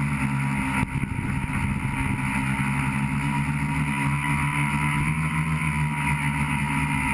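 Tricopter's electric motors and propellers running in flight, heard through the onboard GoPro: a steady, buzzing hum with a brief dip a little under a second in.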